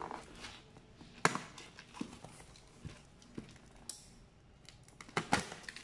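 Utility knife cutting the packing tape and cardboard of a parcel, with scattered clicks and taps as the box is handled. There is a sharp click about a second in, a brief slicing stroke past the middle, and a couple more clicks near the end.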